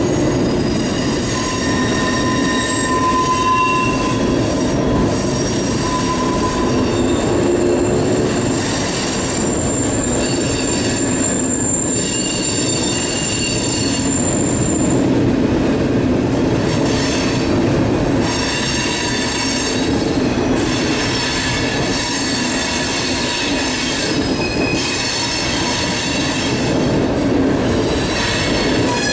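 Boxcars of a mixed manifest freight train rolling past: a steady rumble of wheels on rail with thin, high wheel squeals coming and going, one held for several seconds in the first half.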